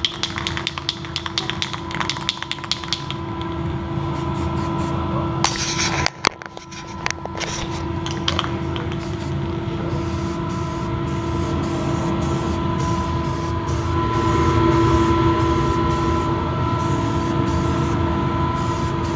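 Aerosol spray can of flat black spray paint spraying in repeated passes, a hiss broken by short gaps, over a steady hum. Quick clicks come in the first few seconds.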